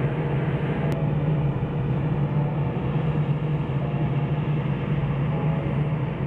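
Heavy construction machinery running: a steady low diesel-engine drone, most likely the vibratory road roller compacting the track. There is a brief click about a second in.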